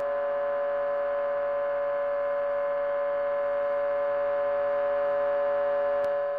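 Sustained droning chord of the film's score, many steady tones held without change, fading away near the end. A single sharp click sounds just before the fade.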